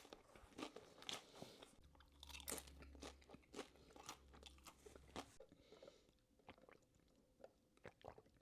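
Faint close-up chewing and crunching of food, a string of small crackles and mouth clicks that thins out in the second half.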